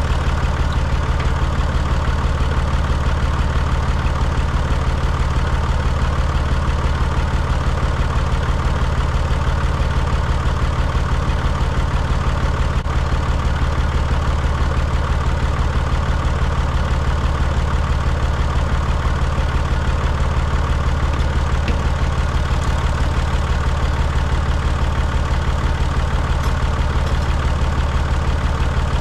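Tractor engine idling steadily, with an even low throb.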